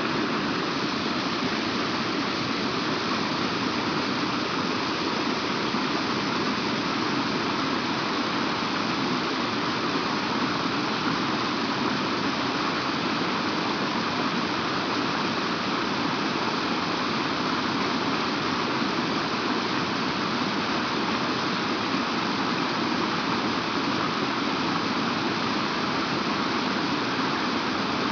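Water of a mountain stream flowing over rocks: a steady, unbroken rushing.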